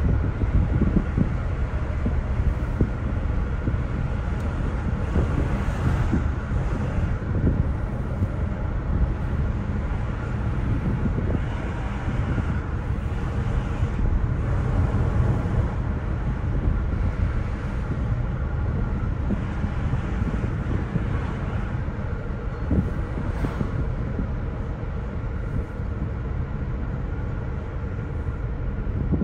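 Car driving on a paved road, heard from inside the cabin: steady low engine and tyre rumble with road noise.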